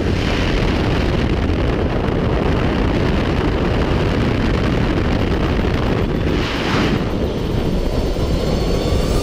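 Loud, steady rush of wind buffeting the microphone during a skydive.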